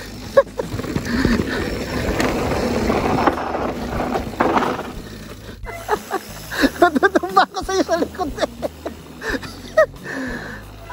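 Mountain bike rolling along a dirt forest trail: a rushing rattle of tyres and bike over the ground, heaviest in the first half, under background music. A voice comes in from about six seconds.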